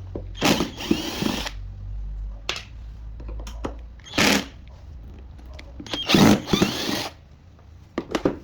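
Handheld power drill or electric screwdriver running in several short bursts, opening up a supercapacitor module's casing.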